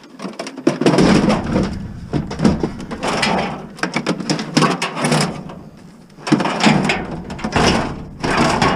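Pieces of scrap metal being handled and thrown onto a pile, clanking and rattling in repeated bursts.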